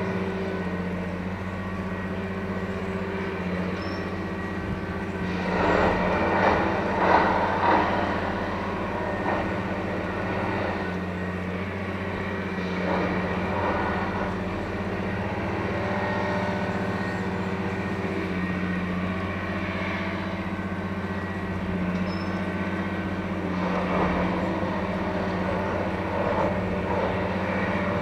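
A railway multiple tie tamper's engine runs steadily with a low hum. Louder bursts of mechanical noise come about a fifth of the way in and again near the end.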